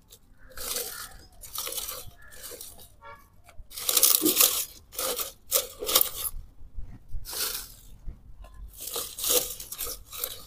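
Dry leaves crunching and rustling in irregular bursts as a hand stuffs and presses them into a plastic plant pot, laying a leaf layer over broken brick for drainage.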